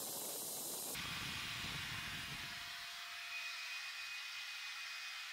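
Faint steady whir and hiss of a small motor running. Its tone changes abruptly about a second in, and a faint steady whine sets in around three seconds in.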